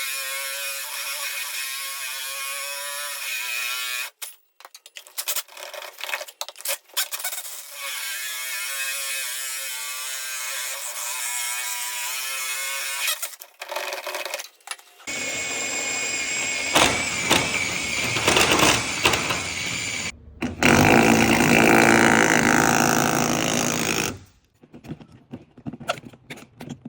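Hilti diamond core drill running, its motor whining with a wavering pitch in two spells broken by short knocks. Then a louder, rougher grinding stretch in the second half as the core bit works.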